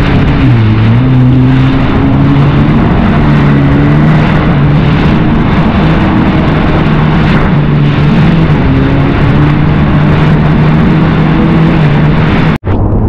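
Personal watercraft engine running steadily at trolling speed, its pitch wavering slightly as the hull rides the swell, over a rush of wind and water. The sound drops out for an instant near the end.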